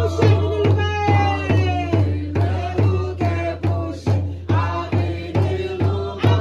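Music with a steady drum beat, about two and a half beats a second, under a melody.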